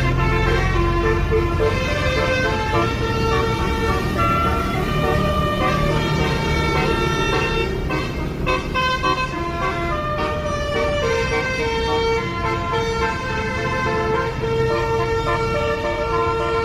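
Bus 'telolet basuri' musical air horn with 12 trumpets playing a tune of held notes that step from pitch to pitch, often several notes sounding together.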